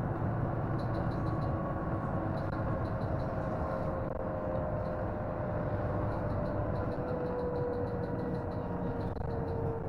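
Double-decker bus engine and drivetrain running steadily, with a whine that falls slowly in pitch as the bus slows.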